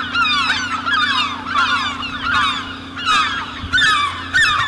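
A flock of birds calling, many short downward-sliding calls overlapping one another over a steady low hum.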